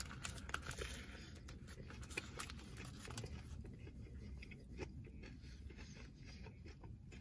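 A man biting into an A&W Teen Burger and chewing it with his mouth closed. The chewing is faint, with small irregular wet clicks that are busiest in the first three seconds or so and thin out after.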